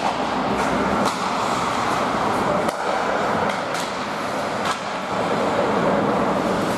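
Ice hockey play on a rink: a steady scraping rush of skate blades on the ice, with several sharp clacks of sticks and puck.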